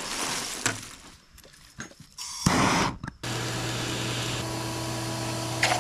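A shop vacuum used as the air blower on a coal forge switches on about three seconds in and runs steadily, a motor hum under a rush of air fanning the coal fire into flame. It is preceded by a short loud rush of noise.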